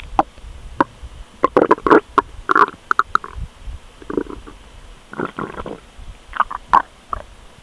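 A person's stomach rumbling and gurgling in a series of short, irregular gurgles, loudest about two seconds in and again near the end: digestion after overeating.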